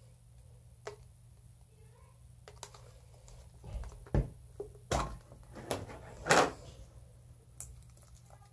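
Plastic food container's snap-on lid being worked loose and pulled off: several sharp plastic clicks and short scrapes, the loudest about four seconds and six and a half seconds in.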